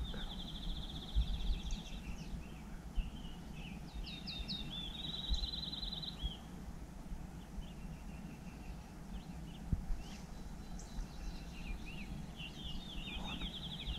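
A songbird singing three times, each phrase a few lower notes running into a fast high trill, over a steady low rumble of background noise.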